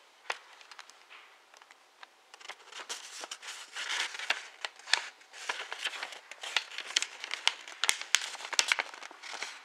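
Origami paper rustling and crinkling as fingers fold it and line up the edges, with many small sharp crackles. Sparse and quiet for the first couple of seconds, then busier.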